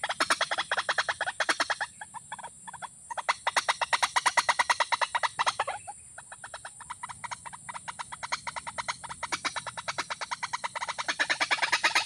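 A rapid, even run of clicking animal calls, about eight a second. It comes in louder and softer stretches, dropping back about two seconds in and again after the middle, and picking up near the end.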